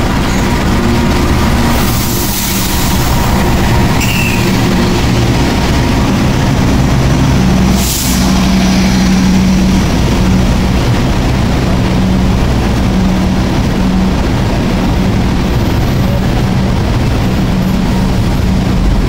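A KAI diesel locomotive's engine drones steadily as the locomotive and its stainless-steel passenger carriages roll slowly past along the platform on arrival. A short hiss comes about two seconds in and another about eight seconds in.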